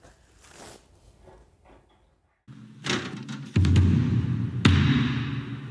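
Dramatic background music from a TV drama's soundtrack. After a quiet start, a low swell builds, then two heavy drum hits land about a second apart, and the second one rings away slowly.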